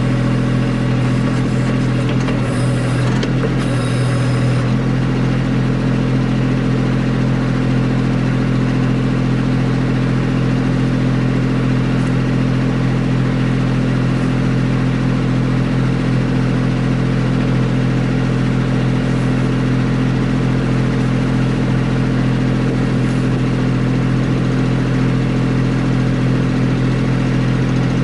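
Kubota B2650 compact tractor's three-cylinder diesel engine running steadily while the backhoe digs a trench, with a few brief clicks about three to four seconds in.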